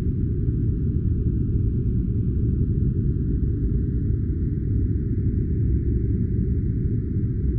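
Steady noise-generator track, deep and rumbling with almost nothing in the upper range, holding an even level throughout with no events.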